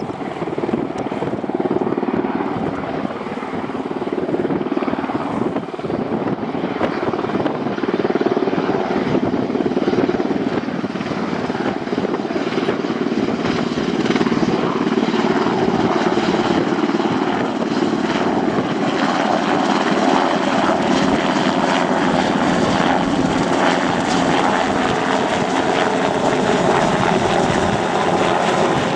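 Sikorsky S-92 helicopter flying low overhead: steady rotor and turbine noise that grows louder over the first eight seconds or so and then holds.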